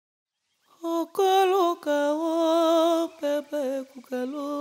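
A single voice singing unaccompanied, starting about a second in: long held notes with vibrato, in short phrases with brief breaks between them.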